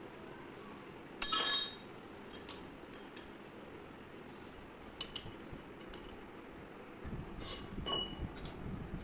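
Steel parts knocking together with a clear metallic ring: a loud ringing clank about a second in, a short sharp clink at about five seconds, and a few more ringing clinks near the end.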